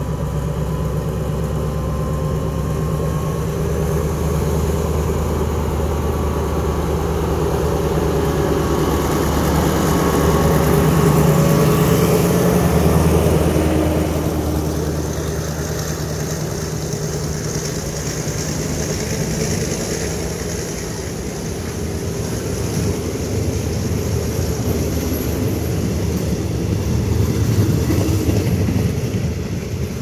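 Passenger train pulling out of a station. A diesel locomotive's engine hum swells to its loudest about twelve seconds in and fades after that, while the carriages roll slowly past with wheel-on-rail noise that grows louder again near the end.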